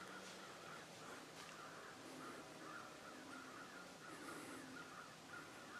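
Faint, distant birds calling: a steady run of short, repeated calls over a quiet background.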